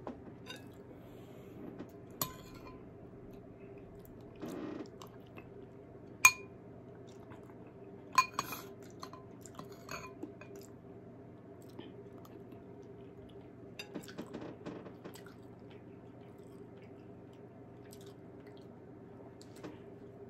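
Close-up eating sounds: chewing, with a metal spoon clinking against a ceramic soup bowl several times, the sharpest clinks about six and eight seconds in.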